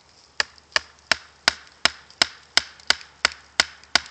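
Wooden baton giving easy taps on the spine of a Habilis Bushtool knife to drive its 1055 carbon steel blade down through an upright piece of wood: an even series of sharp knocks, about three a second, starting a moment in.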